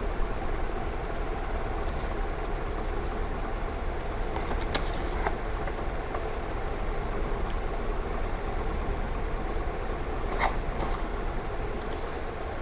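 Steady background noise with a few light clicks scattered through it.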